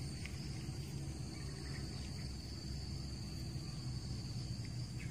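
Steady high-pitched chirring of insects, likely crickets, over a low rumble, with a few faint clicks.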